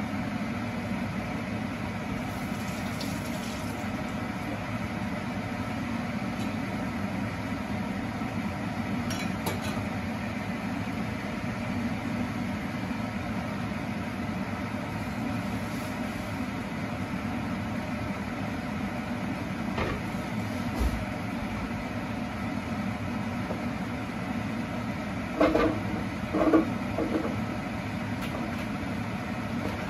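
Steady hum of a small motor running, with a short knock about two-thirds through and a few more near the end.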